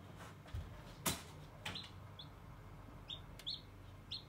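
A hatching chick peeping from inside a pipped chicken egg: about five short, high peeps, each falling slightly, with a few sharp clicks between them, the loudest about a second in.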